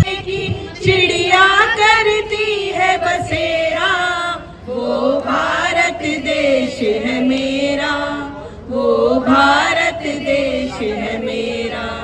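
A group of women singing together in long, drawn-out phrases, with two short pauses between phrases.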